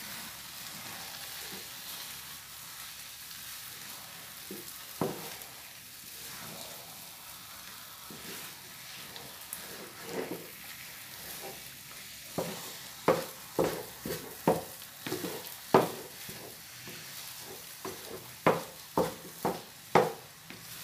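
Wooden spatula stirring thick, sticky glutinous rice cooked in coconut milk (biko) in a pan on the heat, over a faint steady sizzle. The scrapes and knocks of the spatula against the pan are sparse at first and come much more often in the second half.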